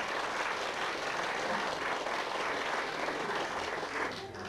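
Audience applauding after a poetry reading, the clapping dying away near the end.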